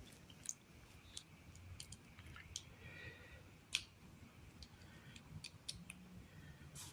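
Faint, scattered clicks of plastic Lego Technic pieces being handled and fitted together. The loudest click comes a little under four seconds in.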